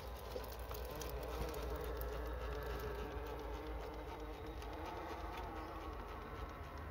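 Electric motor and gearbox of an Axial SCX10 III Gladiator RC rock crawler whining steadily at crawl speed as it climbs over rock, with scattered clicks and crunches from its tyres on the stone.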